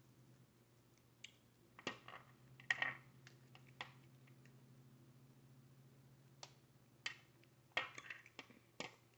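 Cooked crab shell being cracked and picked apart by hand: scattered sharp cracks and snaps, loudest about three seconds in and in a cluster near the end, over a faint steady hum.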